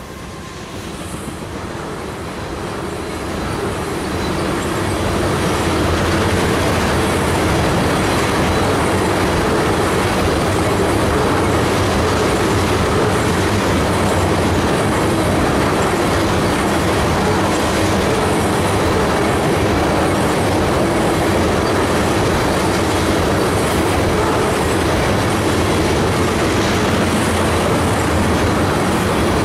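Freight train of tank cars rolling past: steady rumble of steel wheels on rail with a rhythmic clickety-clack. It swells over the first few seconds, then holds steady.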